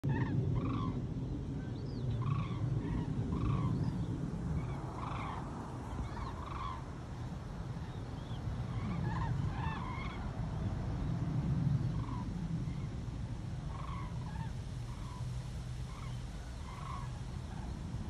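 A flock of large birds calling in flight overhead: many short, repeated calls overlapping one another throughout, over a steady low rumble.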